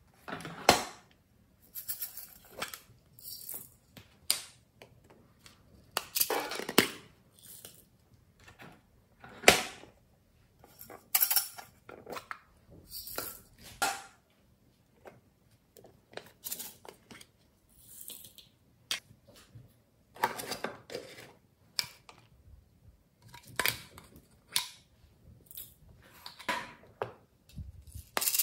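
Hard plastic glitter containers being handled, opened and set down, with sequins shaken out onto a tray of slime: an irregular run of clicks, taps and light rattles in short clusters with pauses between them.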